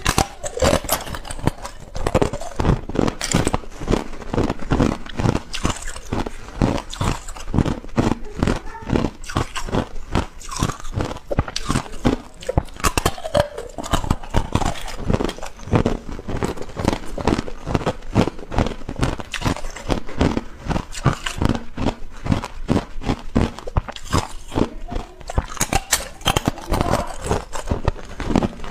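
Thin, hollow ice cubes crunching and cracking as they are bitten and chewed: many sharp crunches in quick succession.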